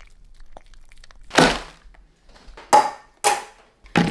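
A small dog crunching hard food pellets: four loud, sharp crunches, irregularly spaced over a few seconds.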